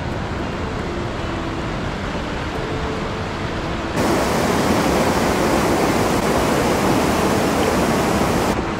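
Steady rushing of a fast, rocky river's white-water rapids. About four seconds in it jumps suddenly louder and brighter, then drops back shortly before the end.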